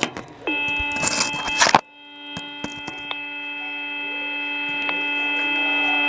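Fire engine horn sounding a held chord of several tones, bending up in pitch as it starts and growing steadily louder. Rustling and clicks of handling mix in over the first couple of seconds.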